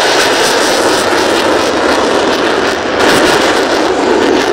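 Dassault Rafale Marine's twin M88 jet engines at takeoff power, a loud, steady rushing noise that swells briefly about three seconds in.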